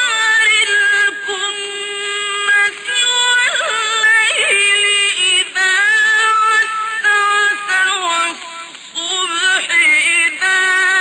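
A male reciter chanting the Quran in the melodic mujawwad style: a single high voice holding long, ornamented notes in drawn-out phrases, with short breaks between them.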